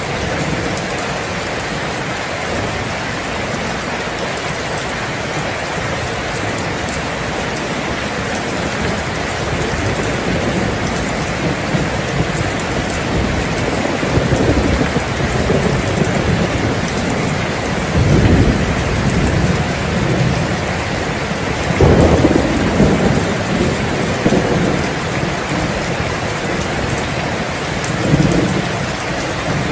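Heavy rain falling steadily, with rolling thunder. Deep rumbles of thunder begin about halfway through, the loudest about two-thirds of the way in, and another comes near the end.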